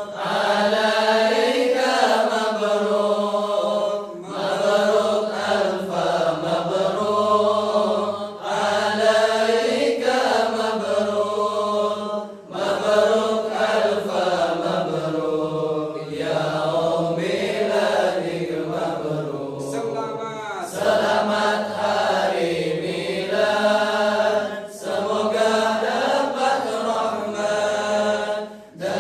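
A voice singing an Arabic-style chant, a wavering melody sung in phrases of about four seconds with short breaks between them, and a quick ornamental warble about two-thirds of the way through.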